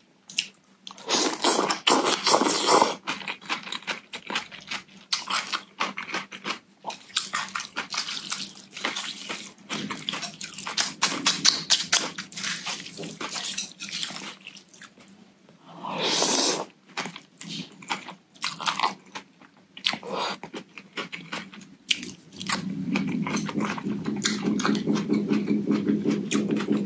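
Eating sounds of Korean cold noodles (naengmyeon): loud slurping of noodles about a second in and again around sixteen seconds, with wet crunching and chewing of the noodles and crisp vegetables in between. Near the end a low, fast-pulsing hum sets in.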